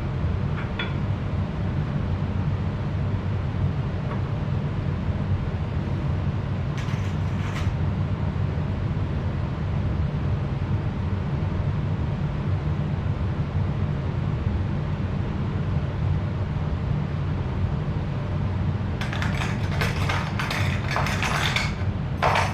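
Steady low rumble, with short spells of clinking and rattling from handling metal three-point hitch parts and pins: once about a third of the way in, and a longer stretch near the end.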